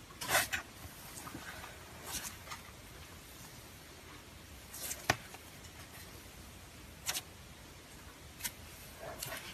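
Fluffy slime being squeezed and stretched by hand, giving about seven short crackly bursts a second or two apart, the loudest near the start, with a sharp click about five seconds in.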